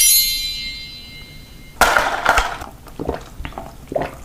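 A bright, shimmering chime fading out over the first second, then a short crunchy rustle about two seconds in, followed by a few faint clicks.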